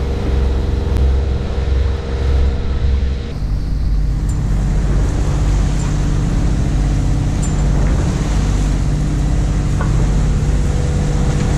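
Sailboat's inboard engine running steadily under way, with wind and the wake's water rushing along the hull. The sound changes abruptly about three seconds in.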